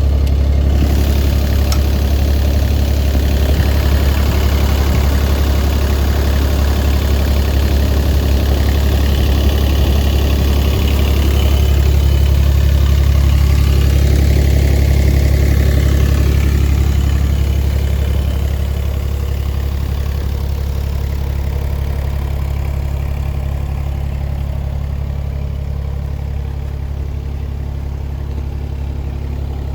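Diesel engine of a Kubota U-17-3A mini excavator running steadily with a deep hum. It grows somewhat louder around the middle, then settles back to a quieter run for the rest of the time.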